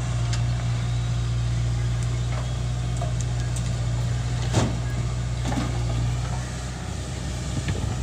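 Heavy diesel engine running steadily with a low drone, with a few sharp knocks, the loudest about halfway through.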